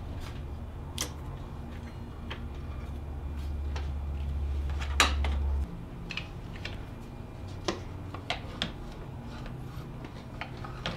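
Hand tools clicking and tapping on metal while the stock 136 amp alternator is unbolted from the engine bay, one sharper knock about halfway through. Under it runs a low steady hum that cuts off suddenly a little past the middle.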